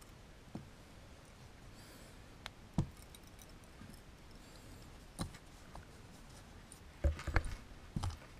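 Small metal fishing tackle being handled: a metal jig, a snap and hooks clicking and tapping against each other now and then, with a quick run of clicks and soft knocks near the end.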